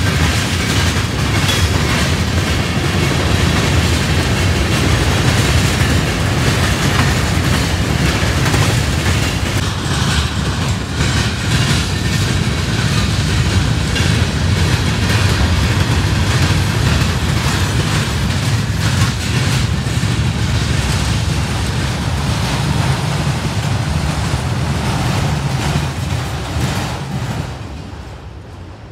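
Freight train cars (tank cars, autoracks, covered hoppers) rolling past close by: a steady rumble and clatter of steel wheels on the rails with scattered clicks, falling away near the end.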